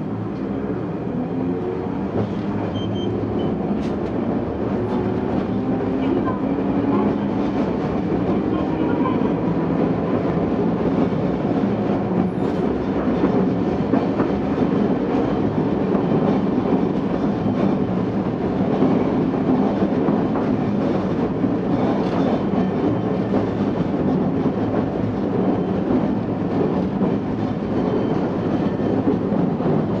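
Tosaden Kotsu 700-series tram heard from inside the car, pulling away and gathering speed: the traction motors' whine rises in pitch as it gets louder over the first dozen seconds. It then runs steadily, with the rumble of the wheels and running gear on the rails.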